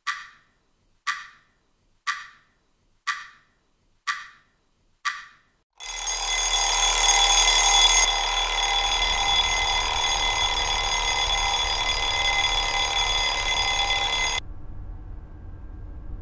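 Phone alarm tone: six short chimes about a second apart, then a loud sustained ringing made of many steady tones. It thins about two seconds later and cuts off suddenly near the end.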